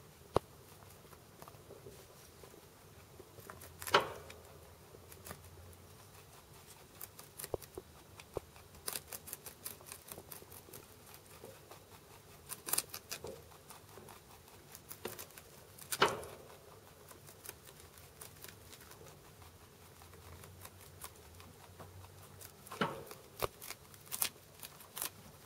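Holland Lop rabbit chewing crisp cabbage leaves: rapid crunching in irregular clusters of quick clicks, with a few louder snaps between them.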